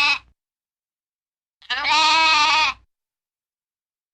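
A goat or sheep bleating: the end of one bleat, one full bleat about a second long near the middle, and the start of another at the very end, each held at a steady pitch with dead silence between.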